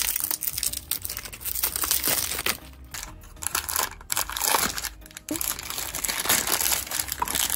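Plastic shrink-wrap crinkling and tearing as a cardboard blind box is unwrapped by hand, then white tissue paper crumpled as it is pulled out of the box, in irregular crackly handfuls with short pauses.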